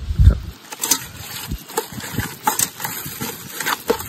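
Wet squelching of a hand kneading yogurt into a thick red chilli masala paste in a metal pot, in short irregular squishes and clicks, after a brief low rumble at the start.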